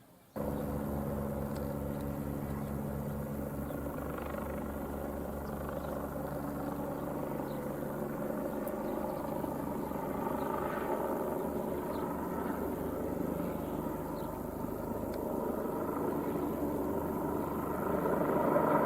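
Helicopter flying, its rotor beating in a fast, even rhythm, growing louder near the end.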